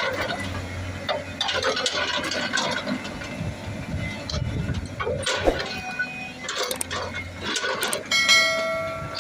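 Heavy machinery working: a low engine rumble with irregular metallic knocks and clanks. About eight seconds in, a sudden ringing metallic tone fades away.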